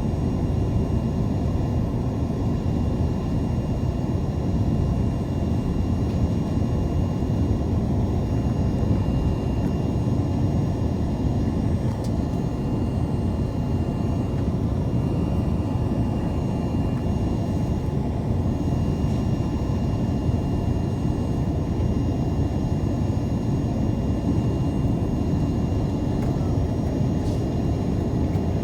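Steady cabin noise inside a Boeing 787-9 airliner on approach to land: an even, low rumble of engines and airflow with a few faint, steady high tones over it.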